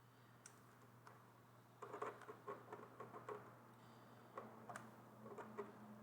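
Light clicks and taps of small hard parts being handled, coming in quick irregular clusters from about two seconds in, over a faint steady hum.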